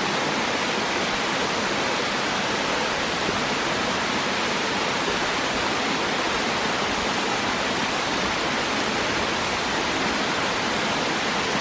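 Todmooser waterfall: falling water making a steady, even rushing noise that does not change.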